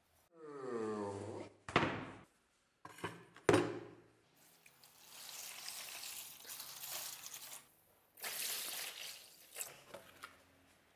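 A short falling-pitch scrape and a few sharp knocks from the rusty steel drawknife being handled on the wooden workbench, then rust remover liquid pouring in a stream into a plastic tub over the blade, in two spells.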